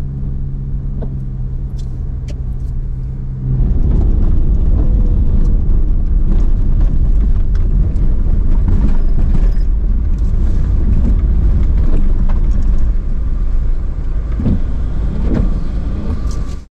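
Car driving along a road: a steady engine hum, then about three and a half seconds in a louder low rumble of road noise takes over and carries on.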